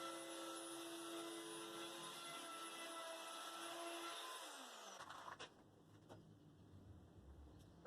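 Electric power tool motor running steadily with a whine, switched off about four seconds in and winding down over a second, followed by a few faint clicks.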